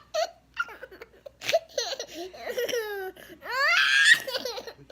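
A young child laughing in short peals, then a long high squeal of laughter that rises in pitch about three and a half seconds in, the loudest moment.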